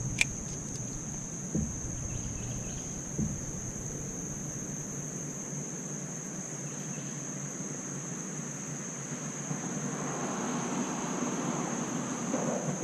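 Insects droning at one steady high pitch, with a sharp click just after the start and two soft knocks in the first few seconds.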